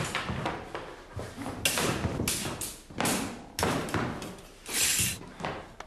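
Sword fight at close quarters: a run of sharp clashes and thumps as two duellists grapple.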